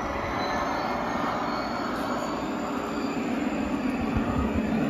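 G scale model diesel locomotives rolling along outdoor garden-railway track: a steady rumble of wheels and motors on the rails, with faint high-pitched wheel squeals gliding in and out.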